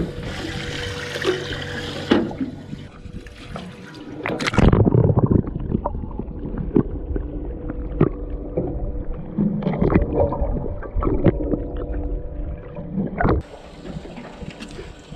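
Water sloshing and gurgling, with scattered knocks and clicks. One loud, low thump comes about four and a half seconds in.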